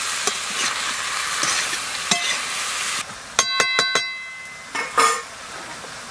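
Taro stolons and snails sizzling in a hot metal wok as they are stirred and scraped with a metal spatula. A little after three seconds the sizzling drops and the spatula is knocked against the wok several times in quick succession, ringing, with one more knock about a second later.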